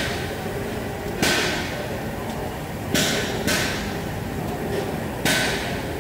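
Four sharp knocks, hammer-like, irregularly spaced and each ringing briefly, over a steady background hum.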